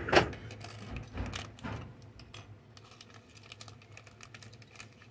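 Small parts and plastic packaging being handled on a tabletop as a scale RC truck's back rack is unpacked. A sharp crackle right at the start is the loudest sound, followed by a quick run of light clicks and knocks, then fewer faint ticks.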